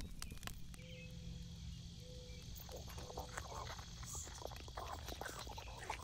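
Faint insect chirring, like crickets, with scattered soft, squishy clicks and crackles: added bug sound effects.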